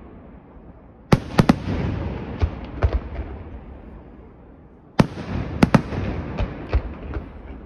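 Aerial firework shells bursting in the sky: a loud bang about a second in is followed by several more sharp reports, and a second cluster of bangs comes about five seconds in. A rumbling echo rolls on after each cluster and fades.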